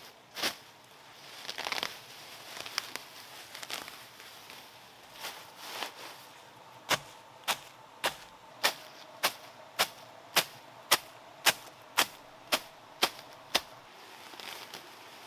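A short-handled metal blade chopping through weeds into the soil, a few sharp chops at first and then a steady run of about two chops a second through most of the second half. Between the chopping bouts comes the rustle of cut grass being gathered.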